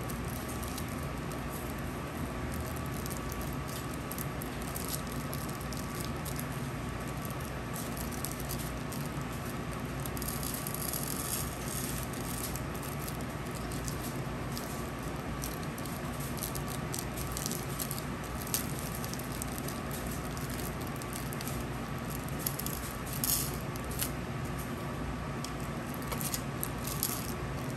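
Steady background hum with scattered light clicks and rattles, and two brief hissy patches about a third of the way in and near the end.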